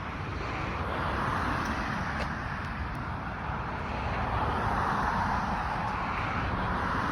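Road traffic: passing cars whose tyre noise swells and fades twice over a steady low rumble.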